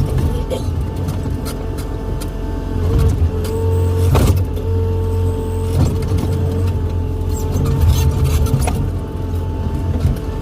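Excavator's diesel engine running steadily under work, with a whining tone that breaks off and returns and a few sharp knocks, the loudest about four seconds in.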